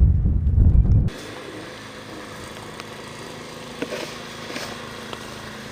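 Wind buffeting the microphone with a heavy rumble for about a second, then cutting off abruptly to a steady engine drone with a few faint ticks.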